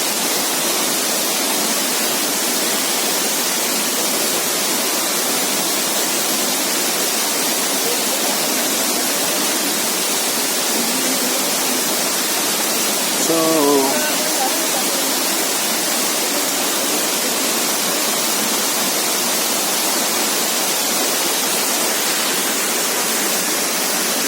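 Waterfall rushing in a steady, even roar of falling water. About halfway through, a short human call rings out briefly over it.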